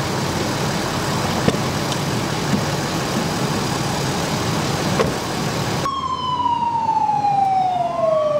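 Steady engine noise from idling fire apparatus, with a few faint clicks. About six seconds in it cuts to an ambulance siren, a wail falling in pitch, with a second siren tone starting to rise near the end.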